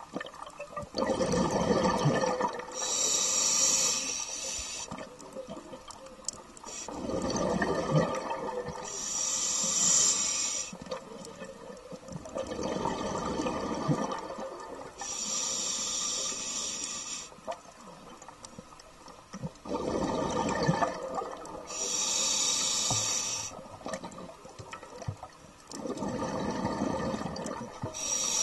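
A scuba diver breathing through a regulator underwater: a hiss on each inhale alternating with a rush of exhaled bubbles, about one breath every six seconds.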